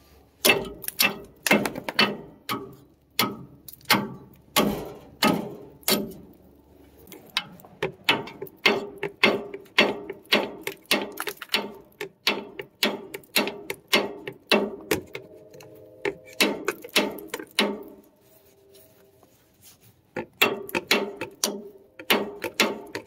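A hammer driving a screwdriver against a rusted, half-cut nut on a leaf spring shackle bolt to split it off. The sharp metal-on-metal blows come about two to three a second, each ringing briefly, with a short pause near the end.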